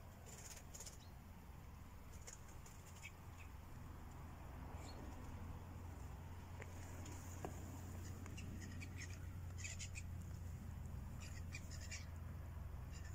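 Faint, short, high-pitched animal chirps in scattered clusters over a steady low hum.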